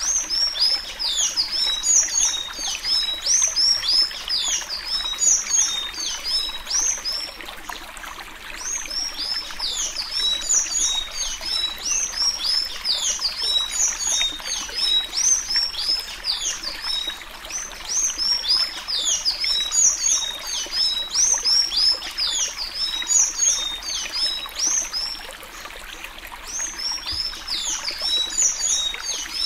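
Sanhaço-azul tanager singing the 'suí suí' song of the Alagoas type: a quick, nearly continuous run of high, downward-sliding whistled notes, with brief lulls about 8 seconds in and near the end.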